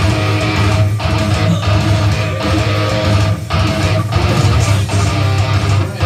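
Electric guitar played through a Kemper Profiler amp modeller, loud and dense, with a few brief stops between phrases.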